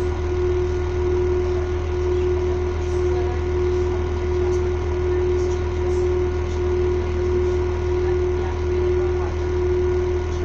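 Steady hum of a stopped train's engine or onboard equipment, a constant mid-pitched tone over a low drone.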